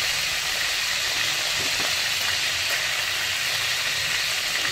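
Ghee and oil sizzling steadily in a kadai around a lump of freshly ground chilli-garlic masala paste just added to fry.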